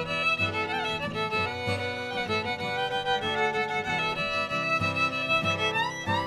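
Background music led by a fiddle, with sliding notes over a low accompaniment.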